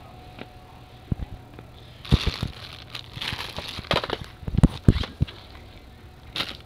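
Handling noise on a handheld phone's microphone: irregular knocks and rustling, busiest from about two seconds in until about five seconds in.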